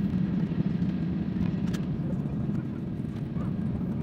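Steady low hum inside a jet airliner's cabin as it taxis, its engines at idle thrust.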